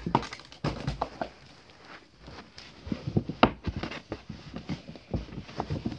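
Irregular knocks, rustles and soft thumps of a person moving about and handling things, with one sharper knock about three and a half seconds in.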